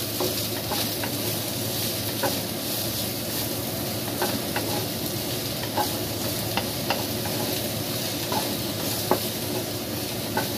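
Onion, garlic and spring onion sizzling in oil in a wok, stirred with a wooden spatula that clicks and scrapes against the pan every second or two.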